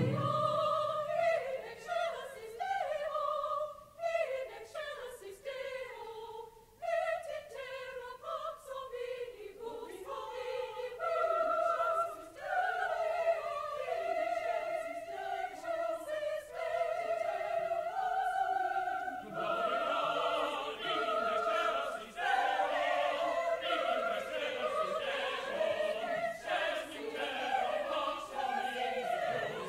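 Choir singing a movement of a Christmas oratorio; about twenty seconds in, the singing grows fuller and brighter.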